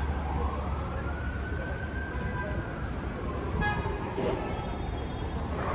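An emergency-vehicle siren wails in one slow sweep, rising, holding, then falling back, over the low rumble of street traffic. A brief horn toot sounds about three and a half seconds in.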